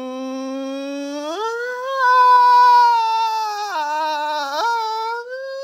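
A man's long, held scream in bungee free fall, on one sustained note. It starts low, jumps up in pitch about a second and a half in, sags briefly near four seconds and climbs back up.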